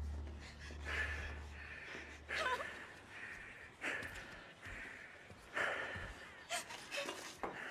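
A person's ragged breathing and short gasps, coming about once a second, with one falling whimper near the start. A low drone fades out in the first two seconds.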